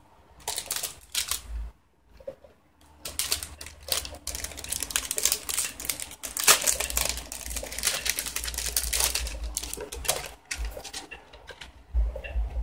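Plastic packaging crinkling and crackling in the hands as a small item is unwrapped: a dense run of sharp clicks and crackles, with a short pause about two seconds in and some dull bumps underneath.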